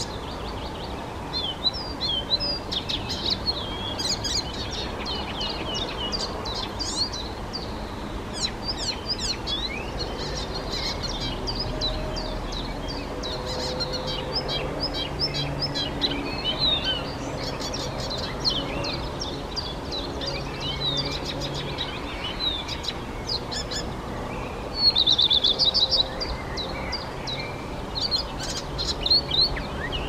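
Icterine warbler singing its continuous, rambling song of rapid, varied high notes, with a louder quick run of repeated notes about 25 seconds in.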